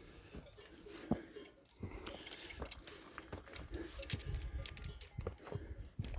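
Footsteps of a hiker walking on a rocky mountain trail: irregular crunches and clicks of boots on stones and gravel.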